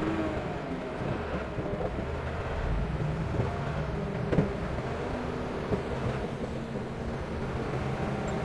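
Komatsu D31PX bulldozer's diesel engine running steadily under work, with a few sharp metallic knocks, the loudest about four and a half seconds in.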